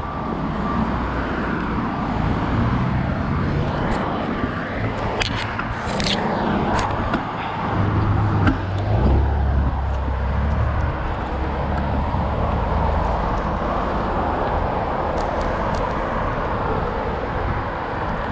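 Road traffic noise: cars passing with a steady hiss of tyres and engines, a heavier vehicle's low rumble swelling about eight to eleven seconds in. A few sharp clicks come around five to seven seconds in.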